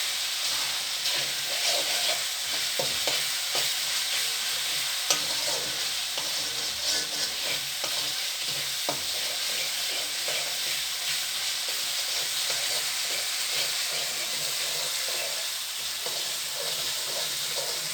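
Spice paste of onion, chili, ginger, garlic and ground spices sizzling steadily in oil in a karahi while it is stirred, with scattered short clicks of the stirring utensil against the pan. This is the masala being fried down until the oil separates from it.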